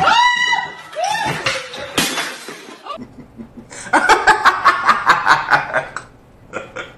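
A high voice cries out in rising-and-falling wails, with a sharp knock about two seconds in. After a break, a man laughs hard in quick bursts, about five a second, trailing off into a few softer chuckles near the end.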